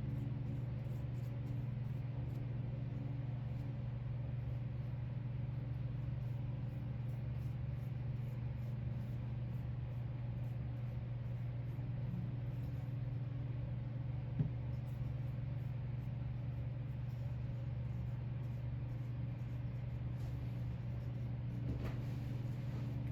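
A steady low hum with no change in pitch or level, and one brief click about fourteen seconds in.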